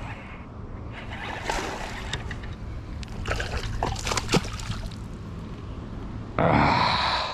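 Largemouth bass thrashing and splashing at the surface at the water's edge in two spells, about a second and a half in and again around three to four seconds in, with a sharp snap as it shakes free of the jig. A short, loud vocal outburst near the end.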